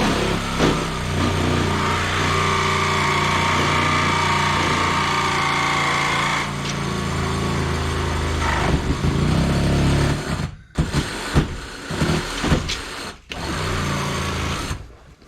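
A handheld power tool's electric motor runs steadily for about ten seconds, its pitch dropping slightly about six seconds in. It then runs in several short start-stop bursts before cutting off near the end.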